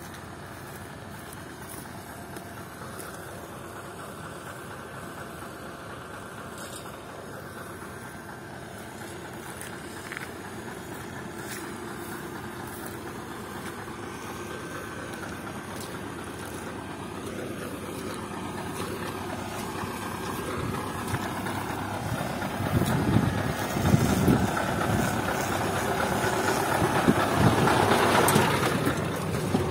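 Heavy truck tractor's diesel engine idling steadily, growing louder toward the end, with heavy low rumbles in the last several seconds.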